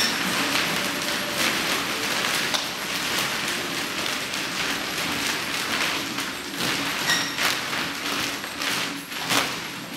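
Double nine-section chain whips swung fast, the steel links rattling and whooshing in a continuous jingle, with sharper snaps now and then.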